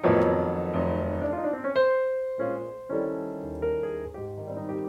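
Slow piano music, with notes and chords struck every second or so and left to ring.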